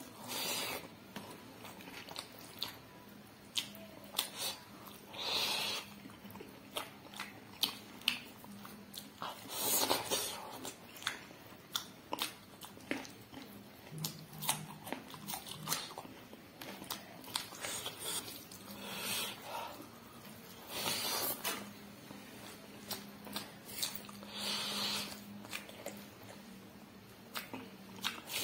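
Someone chewing and eating a pork dish: irregular wet smacks, crunches and short clicks, several every few seconds.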